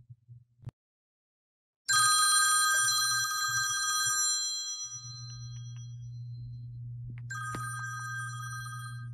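Smartphone alarm tone ringing: a bright, bell-like chime of several steady pitches that starts about two seconds in and fades over a few seconds, then sounds again near the end, over a steady low hum.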